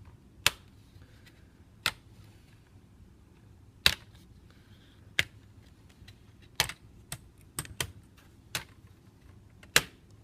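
Plastic clips of a laptop screen bezel snapping loose as it is pried off, with about ten sharp, separate clicks at irregular intervals.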